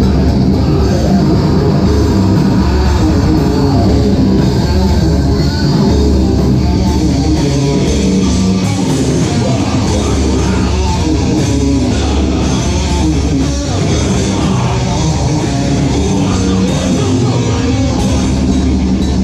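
Live rock band playing loud: electric guitar, bass guitar and drum kit, with a vocalist singing into a microphone.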